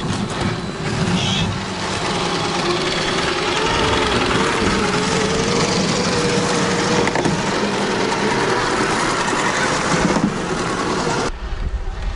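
Electric motor and gear whine of 1/10-scale RC crawler trucks climbing a slope of loose sandy grit, with the tyres crunching over the grit. The sound changes abruptly about eleven seconds in.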